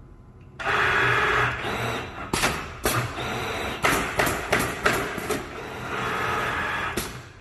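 Allio A5F-600 automatic canvas stretching and stapling machine running through its cycle. It starts suddenly with a steady air hiss and motor whine, then gives a run of about ten sharp pneumatic clacks, several in quick succession in the middle, as its air cylinders and staplers fire. The whine returns before a last clack near the end.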